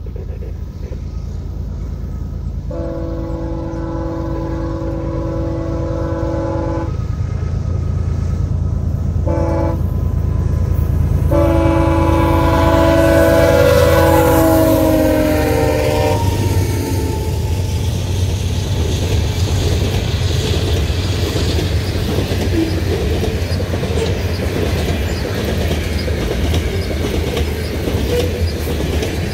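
Canadian Pacific GE freight locomotives sound their multi-chime air horn in a long blast, a short one, then a long one whose pitch drops as the lead units pass. Their diesel engines rumble underneath. After that, a long train of covered hopper cars rolls by with rhythmic clickety-clack of wheels over the rail joints.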